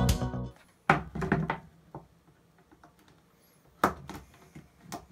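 Background music fades out about half a second in. It is followed by scattered knocks and clicks as parts and tools are handled.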